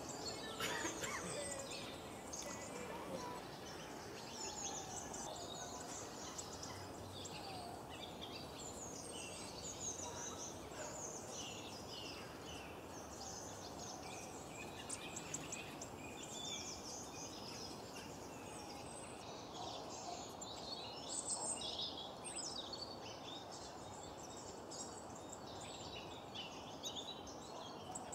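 Faint woodland ambience: many small birds chirping in quick, high, overlapping notes over a steady low background noise.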